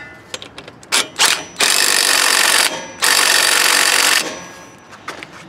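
Cordless 20-volt impact driver tightening the center bolt of a lawn tractor's electric PTO clutch: two short blips about a second in, then two long runs of hammering of about a second each.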